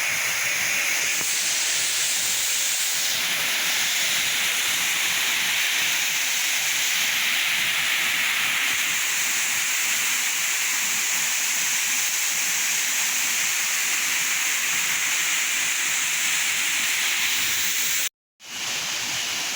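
Waterfall's falling water: a steady, loud, hissing rush that cuts out for a moment near the end.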